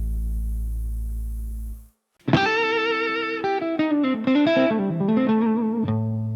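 Blues music: a held low chord stops about two seconds in, and after a brief silence a solo electric guitar starts a slow melody with bent notes.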